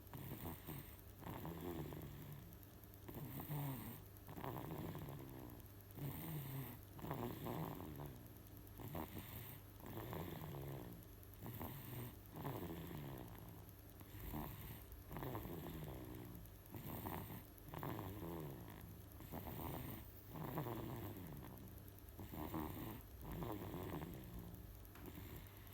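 Baby snoring in its sleep, a snore with each breath, roughly one every second or so.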